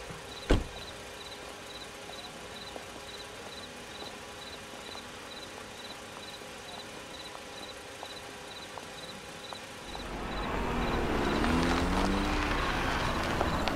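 A cricket chirping steadily, about three short high chirps a second, as a night ambience. A single sharp knock comes about half a second in, and over the last few seconds a louder rush of noise with faint voices rises beneath the chirping.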